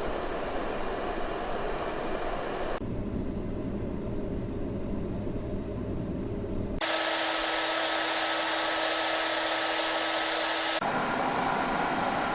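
A run of steady household fan and blower drones, cut one after another. The sound switches abruptly to a different drone about every four seconds: first a rushing airflow, then a lower hum with faint steady tones, then a brighter hiss with a thin steady whine, then another airflow drone near the end.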